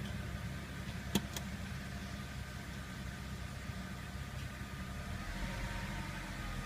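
BMW engine idling steadily, a low even hum, with two sharp clicks about a second in.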